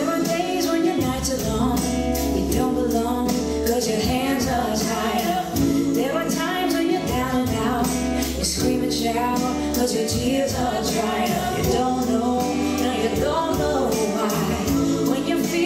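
Recorded song with a singer over a steady beat, playing as the music for a nightclub two-step dance.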